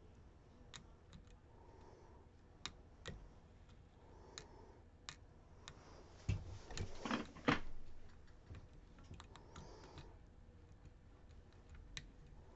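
Small sharp clicks and ticks of a lock pick working the pins and sliders inside a Ruko DP2 lock, scattered, with a denser burst of rattling clicks about six to eight seconds in.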